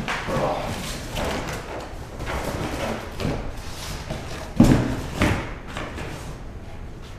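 Cardboard box flaps and packing inserts rustling and scraping as a 1/5-scale RC truck is lifted out of its shipping box. Two heavy thumps come about four and a half seconds in, half a second apart, the first the louder.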